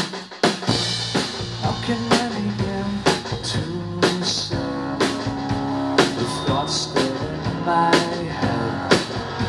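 Live rock band playing a song's instrumental intro on electric guitars and drum kit. The full band kicks in together right at the start, with heavy drum hits about once a second under sustained guitar chords.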